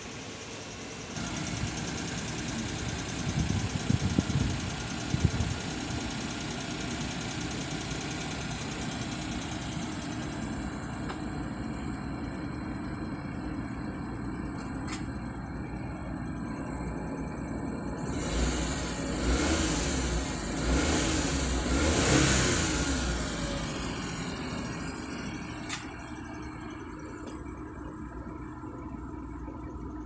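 Vehicle engine running steadily at idle, revved briefly a few seconds in and again, longer, past the middle, after its ignition switch has been replaced.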